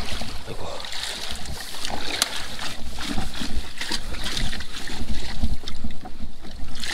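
Water splashing and sloshing in a shallow stream, with many small irregular splashes and low rumbling handling noise, as a scoop net is worked through the water.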